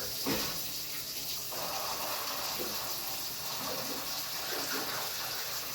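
Water and air hissing steadily out of an open bleeder valve on a water heater that has just been refilled, bleeding trapped air from the tank after an anode rod replacement.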